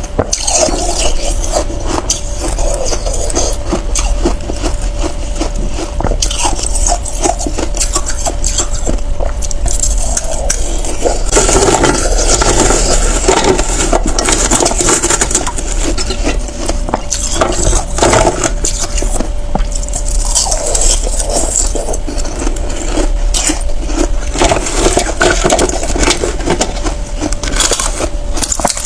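Ice being bitten and chewed close to the microphone: a continuous, dense run of crackling, crunching sounds.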